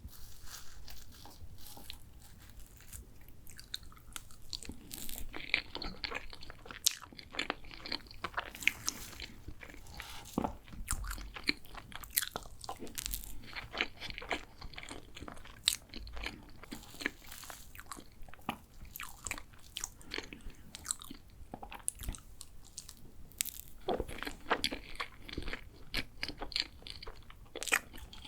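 Close-miked biting and chewing of a layered chocolate pastry: many sharp, irregular crunches, with denser stretches of crackly chewing now and then.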